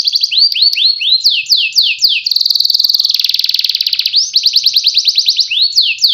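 Domestic canary singing: very fast rolling trills alternating with runs of falling whistled sweeps, about four a second.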